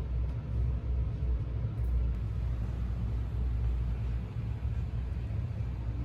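Bus engine idling, heard from inside the cabin as a steady low rumble while the bus waits to leave.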